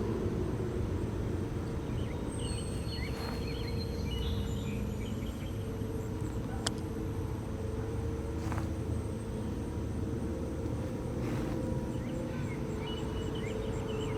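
Outdoor ambience: a steady low rumble like distant traffic, with birds chirping and insects buzzing high and steady. There is a single sharp click about halfway through.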